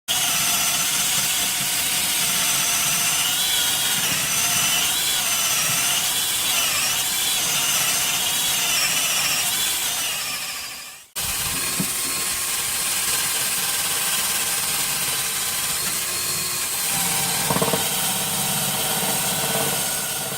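A handheld power tool running under load, rubbing down stone chip coating that has reacted with red oxide paint on the van's steel bodywork; its whine wavers as the pressure changes. It stops for a moment about halfway through and starts again.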